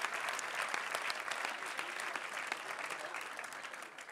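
A large audience applauding, the clapping slowly dying away.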